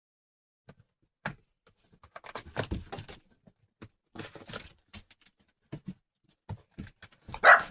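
Puppies moving about on their bedding, with scattered rustling, scratching and tapping. Near the end one puppy lets out a short, loud yelp.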